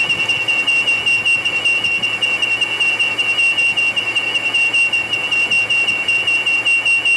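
A steady, high-pitched electronic tone with a fast warble, held unbroken.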